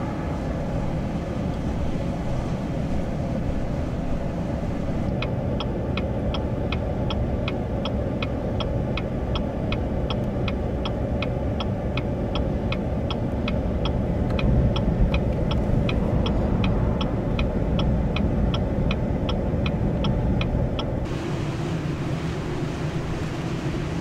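Strong wind in a dust storm rumbling steadily on the microphone. Through most of the middle a regular ticking runs alongside it, about two to three ticks a second, and stops near the end.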